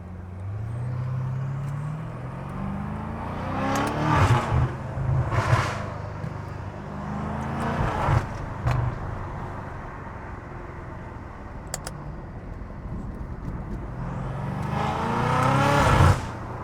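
BMW F90 M5's twin-turbo V8 accelerating hard with aftermarket front-mount intakes drawing in air. The engine note rises in pitch several times and is loudest near the end, where it drops off suddenly.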